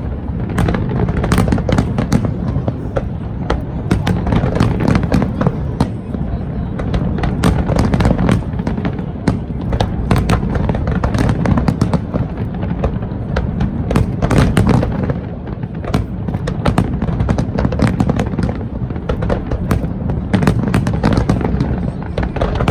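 Fireworks display going off continuously: many sharp bangs and crackles in quick succession over a steady low rumble.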